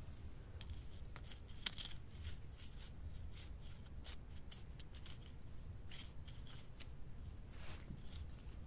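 Narrow metal hand trowel stabbing and scraping into garden soil: a run of short, irregular gritty scrapes and clicks.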